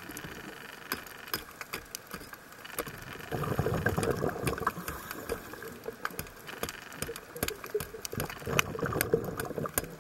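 Underwater sound picked up by a diver's camera: a steady crackle of scattered sharp clicks. Over it come two louder bubbling rushes of a scuba diver's exhaled breath, one at about three to five seconds and a shorter one near nine seconds.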